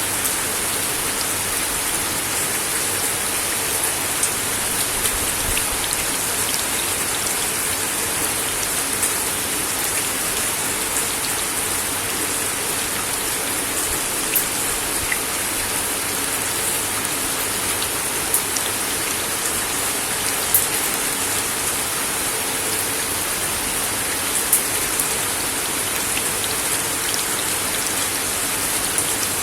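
Steady rain falling on a wooden deck: an even hiss with scattered sharper drip ticks, a few louder drops standing out.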